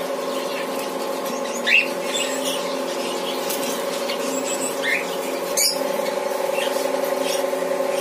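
Caged cockatiels and budgerigars giving a few short, separate chirps, the loudest about two seconds in, over a steady hum.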